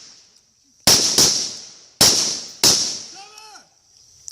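Rifle shots during a team shooting drill: four sharp cracks at uneven intervals in the first three seconds, then another right at the end, each with a quick echo tail.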